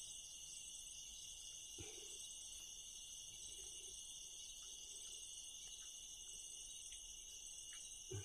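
Quiet night chorus of crickets and other insects, a steady high trilling, with a faint knock about two seconds in and another near the end.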